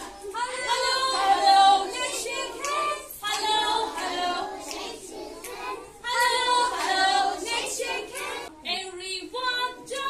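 A group of young girls singing together, in short phrases with brief breaks between them.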